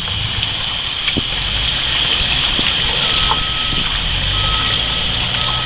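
Water running steadily while a gutted trout's blood groove is rinsed out. From about halfway through, a vehicle's reversing beeper sounds about once a second.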